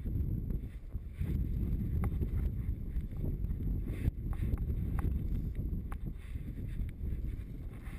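Wind buffeting the camera microphone in a steady low rumble while a paraglider wing is held up in a strong breeze, with a few faint clicks.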